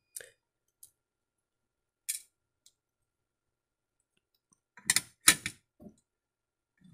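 Small toy-truck parts being handled and set down: a few faint clicks, then a louder quick cluster of clicks and knocks about five seconds in as the black chassis pieces meet the clear plastic storage case.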